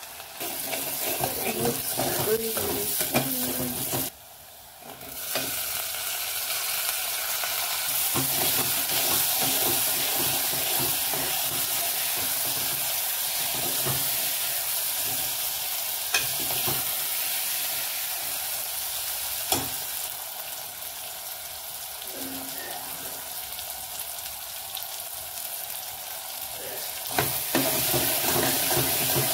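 Lentils, chopped tomatoes and green chillies sizzling in hot oil in an aluminium pressure cooker while being stirred with a spoon, with a few sharp clicks of the spoon against the pot. The sizzle drops away briefly about four seconds in.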